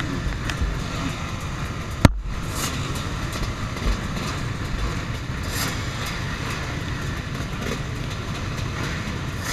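Steady rumble of many off-road motorcycle engines running together, with one sharp click about two seconds in.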